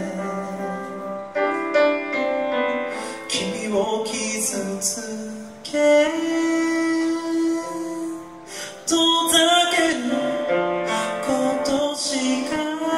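A man singing a Japanese song live into a microphone, with a small band accompanying him on keyboard, guitar and drums.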